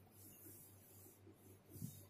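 Faint, rhythmic swishing of a duster wiping a whiteboard, about two to three strokes a second, over a low hum, with a soft knock near the end.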